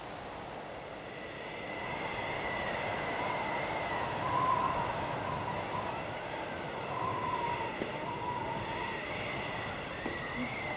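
Wind howling: a steady rush with a thin, wavering whistle that drifts gently up and down in pitch.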